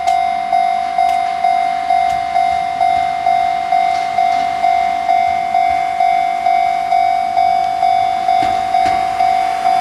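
Japanese level-crossing warning bell ringing steadily, about two strikes a second, each strike fading before the next.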